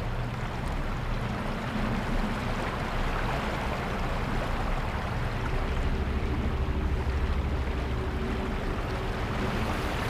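Steady rushing of a river's flowing water with wind; a faint low held tone joins about halfway through.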